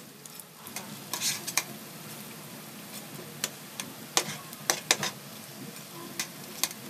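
Lumpia spring rolls deep-frying in hot oil in a wok, a steady sizzle, with scattered sharp clicks of a metal utensil knocking against the wok as the rolls are turned.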